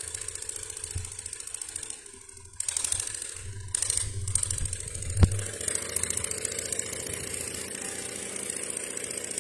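An engine running steadily in the background. The sound drops out briefly about two seconds in, and one sharp knock comes a little after five seconds.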